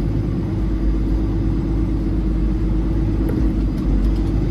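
Peterbilt 389 semi truck's diesel engine running with a steady low rumble as the truck rolls slowly through a yard, heard from inside the cab. A faint click comes about three seconds in.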